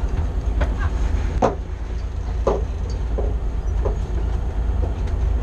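Steady low rumble aboard a party fishing boat, with a few short knocks and clatters at intervals of about a second.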